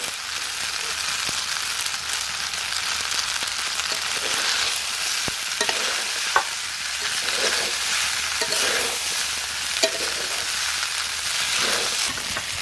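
Pasta, chicken and vegetables sizzling in a hot metal wok while a spatula stirs and scrapes through them, with a few sharp clicks of the spatula against the pan.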